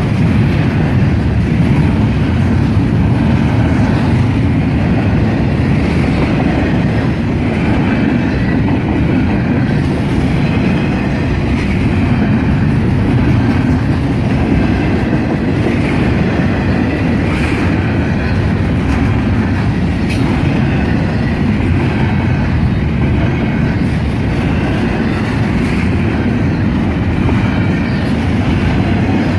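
Norfolk Southern freight train cars rolling past, a steady loud rumble of steel wheels on the rails with clickety-clack over the joints.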